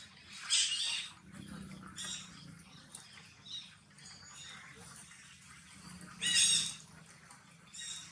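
Long-tailed macaques giving short high-pitched squeals. Two louder ones come about half a second in and about six seconds in, with fainter squeaks between.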